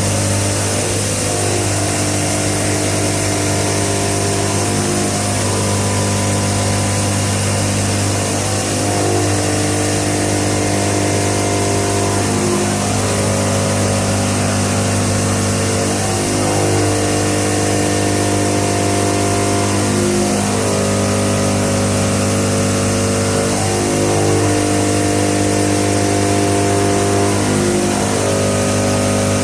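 Soitaab Omniatech plate-fabrication machine running: a steady low hum and hiss, with tones above them that change pitch every second or two.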